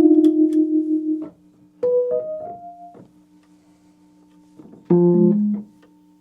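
Wurlitzer 200A electric piano played through its built-in speakers: a held chord with the tremolo pulsing, released just over a second in, then three quick rising notes, and a short chord near the end.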